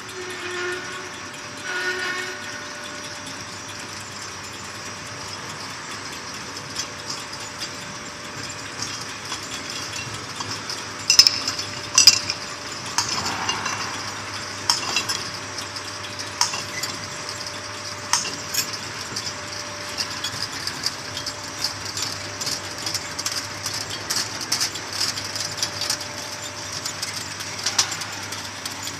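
Bottling-line machinery for whiskey bottles running: a steady hum and hiss, with frequent clicks and clinks of glass bottles and machine parts from about ten seconds in, the sharpest a pair of clinks a little after eleven and twelve seconds.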